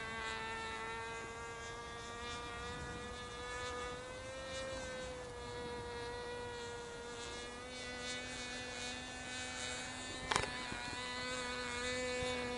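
Radio-controlled model airplane's motor buzzing steadily in flight overhead, its pitch wavering slightly. A short click about ten seconds in.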